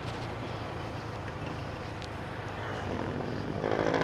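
Motorcycle engine running steadily while riding, with wind and road noise on a helmet-mounted microphone. Near the end a louder pitched sound swells for about a second.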